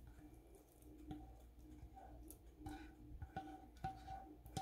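Faint clicks and taps of a spatula against a nonstick frying pan as thick masala purée is scraped out of it, coming more often in the second half.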